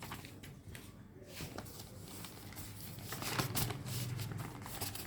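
Quiet rustling and light taps of paper and cardboard packaging being handled.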